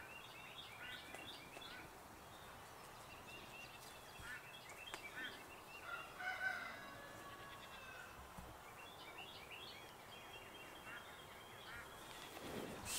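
Faint bird calls: many short chirps scattered throughout, with a louder call about six seconds in.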